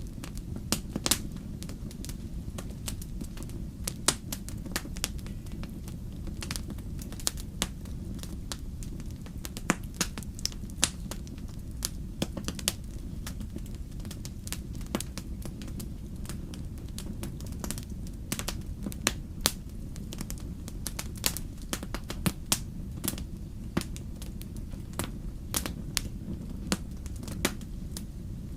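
Fireplace fire burning: a steady low rumble of flames with frequent sharp, irregular crackles and pops from the burning wood.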